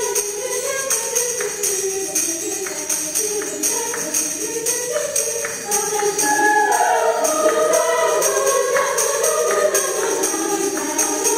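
Background music: a song with a steady tambourine beat and voices singing over it.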